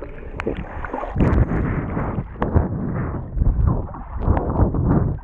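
Water sloshing and splashing around a GoPro in its waterproof housing, muffled and dull, with many small irregular knocks.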